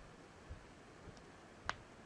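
Faint handling of a shiny LEGO minifigure blind bag in the fingers: a soft low bump about half a second in and one short, sharp crinkle of the packet material near the end.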